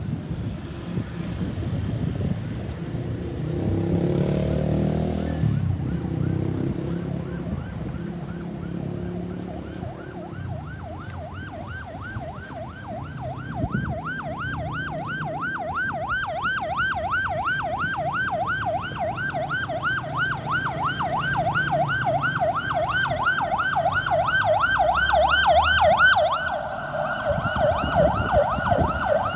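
Ambulance siren in a fast yelp, about four sweeps a second, growing steadily louder as it approaches over road traffic. It is loudest about 26 seconds in, where the sweep shifts lower as the vehicle passes. Earlier, before the siren rises, a vehicle drives by.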